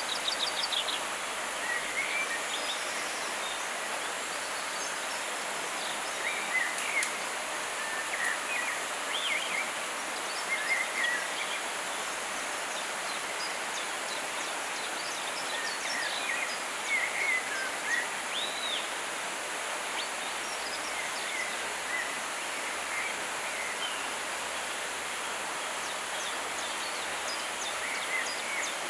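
Rainforest ambience: a steady rushing hiss with a faint high insect drone, and short bird chirps and calls coming every second or two throughout.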